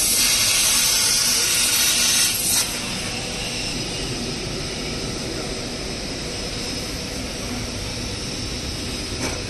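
Fiber laser tube cutting machine at work: a loud hiss of cutting and gas jet for about two and a half seconds that stops abruptly, then a steady machine running noise.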